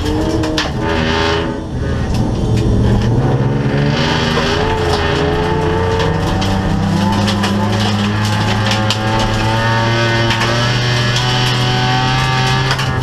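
Race car engine heard from inside the cabin, revving hard with a brief lift about one and a half seconds in, then held at high revs, while loose gravel and dirt clatter against the body.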